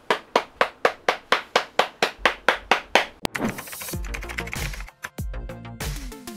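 Hands in work gloves clapping steadily, about four claps a second for about three seconds. Then electronic music with a deep bass and a sweeping whoosh starts.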